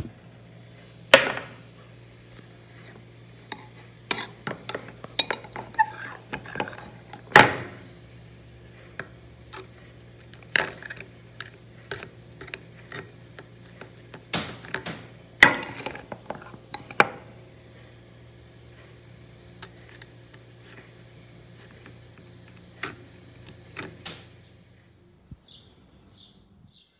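A metal knife clinking and scraping against a glass jam jar and a plate, in irregular clicks and clinks, with a steady low hum underneath. Both stop shortly before the end.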